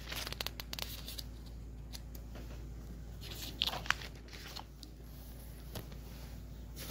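Faint rustling and scattered small clicks of paper notes being handled, over a steady low hum.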